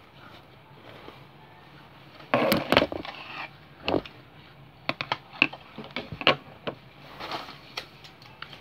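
Plastic-and-foil snack wrappers crinkling and rustling as they are handled and cut open with scissors: short crackly spells with a number of sharp clicks and snips.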